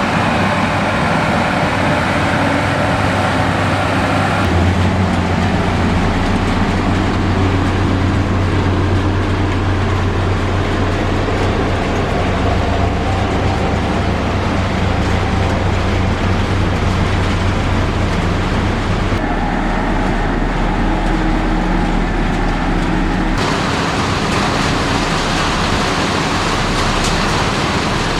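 Heavy diesel construction machinery running steadily with a low engine hum. The sound changes abruptly three times as it switches from one machine to another.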